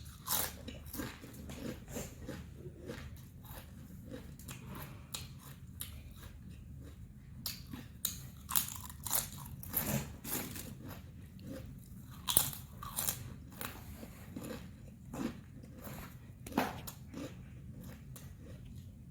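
Close-miked biting and chewing of a crunchy snack, a rapid irregular run of crisp crunches with several louder bites about halfway through and again near the end.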